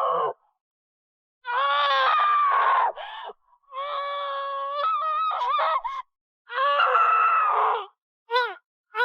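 A woman screaming in anguish: three long, high-pitched screams of a second or two each, followed near the end by short sobbing gasps.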